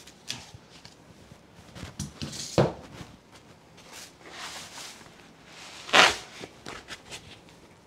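Packaging being handled: a cardboard insert and a foam packing block rustling, rubbing and knocking, with plastic wrap crinkling. There are loud bumps about two and a half seconds in and again about six seconds in, as the foam is worked off the printer.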